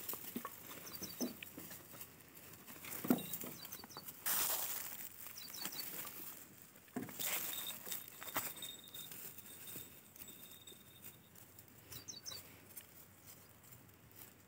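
Goats moving and feeding on dry stubble: soft irregular rustling and patter of hooves and mouths in dry grass, with a couple of louder rustling swells. A small bird gives a short high chirping phrase several times.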